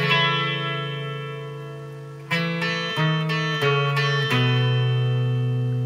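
Rickenbacker 12-string electric guitar: a G chord struck once and left ringing. Then, about two seconds in, four picked notes step down in a descending bass line, and the last is left ringing.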